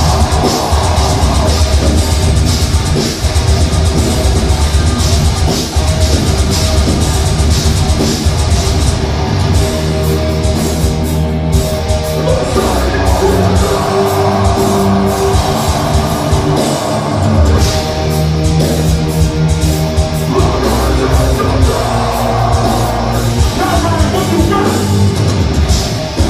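Deathcore band playing live at full volume: heavily distorted electric guitars, bass guitar and a drum kit with constant cymbal and drum hits.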